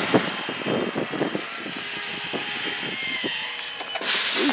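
Mighty Mule 500 gate opener running as it swings the gate toward fully open, mixed with uneven low thumps and a short loud rustle about four seconds in.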